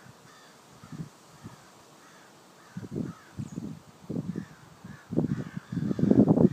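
Crows cawing repeatedly in the background. Irregular low bursts of noise grow louder through the second half and become the loudest sound near the end.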